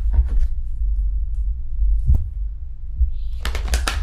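A steady low rumble or hum, with a sharp click about two seconds in and brief rustling sounds just after the start and near the end.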